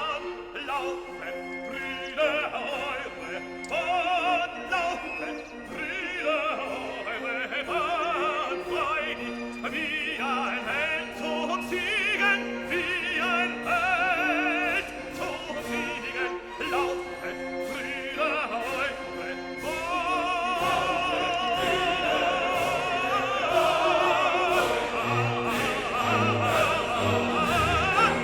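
Background music: a classical piece with operatic singing and orchestra, the voices held on long notes with wide vibrato.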